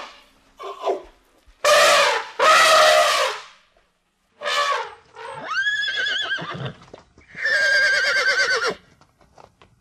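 African elephant trumpeting: several loud calls, the two longest around two and three seconds in. These are followed by horses whinnying twice, each whinny with a fast quavering pitch, near six and eight seconds in.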